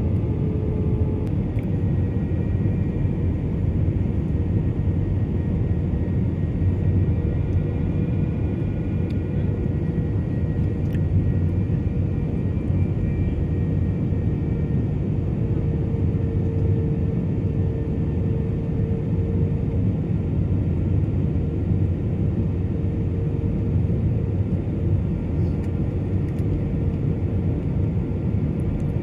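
Jet airliner engines: a steady, deep rumble with a faint whine above it that holds without a break.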